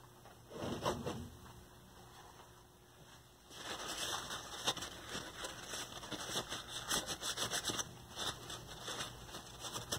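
A cloth wiping and rubbing over a steel chassis to clean up cutting oil and drilling debris around a freshly drilled hole. It is a quick, scratchy swishing that starts about three and a half seconds in, after a brief rustle near one second.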